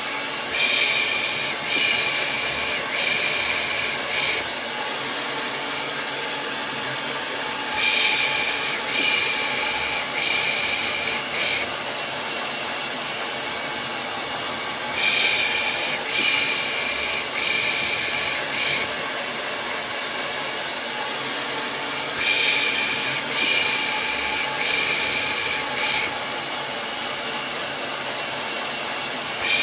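Hair dryer running steadily, overlaid with a person's rhythmic shushing ('pış pış') in groups of four strokes about every seven seconds, a soothing sound used to lull a baby to sleep.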